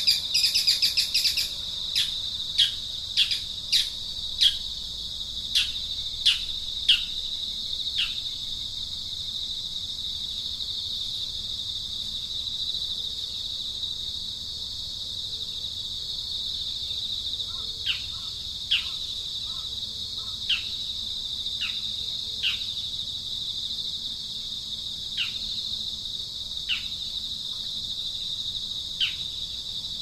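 Insects, crickets by the sound of it, droning steadily on one high pitch, while a bird gives short, sharply falling call notes: a run of about nine in the first eight seconds, then eight more spaced out later. A loud rapid bird chirping fades out about a second and a half in.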